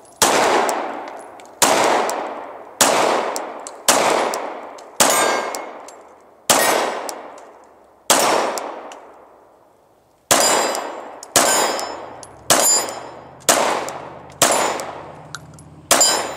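Glock 19 Gen 4 9mm pistol firing thirteen single shots in a slow, steady string, about one to one and a half seconds apart with a slightly longer pause midway. Each shot rings away after it, with the clang of steel plates being hit.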